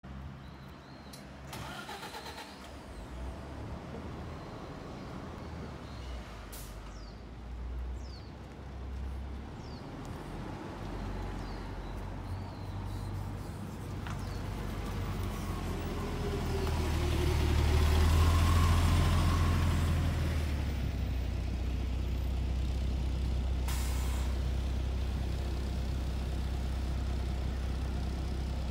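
Isuzu Erga CNG city bus: its natural-gas engine starting and running, with short hisses of compressed air from the air brakes or doors. Near the middle the engine revs up to its loudest as the bus moves off, then settles into a steady lower note.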